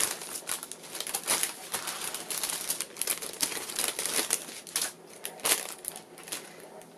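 Clear plastic bag crinkling as hands handle it and the packets of diamond-painting drills inside, a quick run of crackles that thins out near the end.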